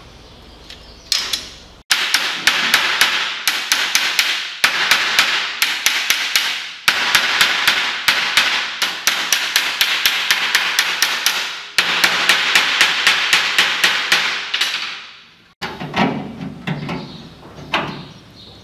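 Hammer striking a steel strip on a steel workbench in rapid blows, about five a second, the metal ringing between strikes. The hammering stops about three-quarters of the way through, giving way to a few scattered, duller knocks.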